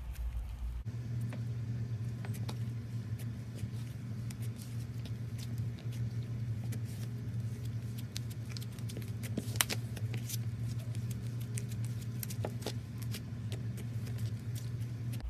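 Slime being squeezed and kneaded by hand, making many small irregular clicks and pops, the sharpest about ten seconds in, over a steady low hum.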